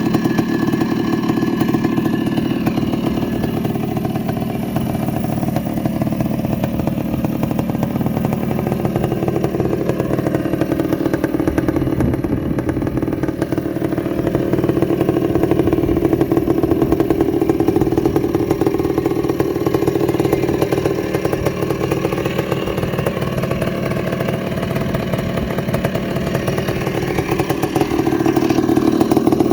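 1984 Honda ATC250R air-cooled two-stroke engine running, its revs sinking slowly around the middle and climbing back up toward the end.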